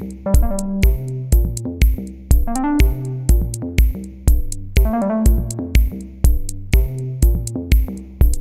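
Electronic background music with a steady beat of about two thumps a second, ticks up high and a synthesizer melody.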